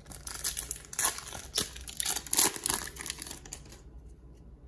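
Foil wrapper of an Upper Deck MVP hockey card pack crinkling and tearing as it is ripped open: a string of rustles and crackles that dies away near the end.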